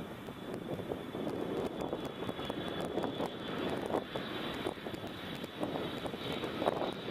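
Boeing 787-8 airliner's jet engines on final approach: a steady rushing roar with a thin high whine that grows stronger in the second half as the plane draws nearer.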